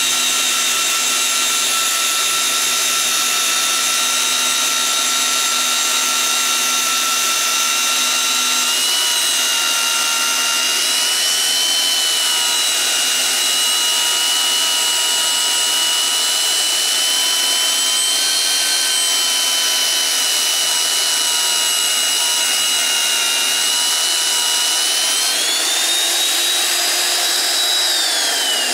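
Hougen HMD130 right-angle magnetic drill running an annular cutter up through a steel beam, drilling upside down: a steady high motor-and-gear whine over the cutting noise. The whine speeds up near the end, then starts to wind down at the very end.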